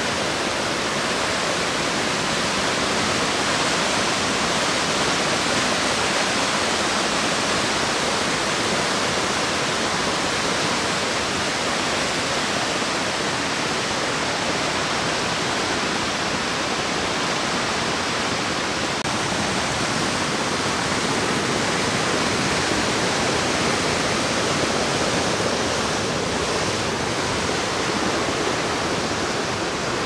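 River water rushing in white-water rapids through a narrow rock gorge at a waterfall: a steady, loud, unbroken rush. The river is running high, swollen after a typhoon.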